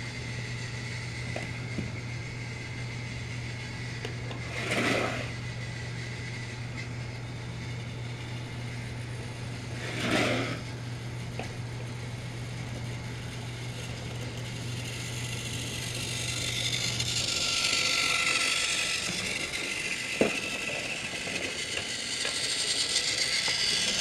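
Motorized Trackmaster toy engine, Percy, whirring along plastic track, its motor and gears growing louder over the last several seconds as it comes up close. A steady low hum runs underneath until about two-thirds of the way through, and two short whooshes come about 5 and 10 seconds in.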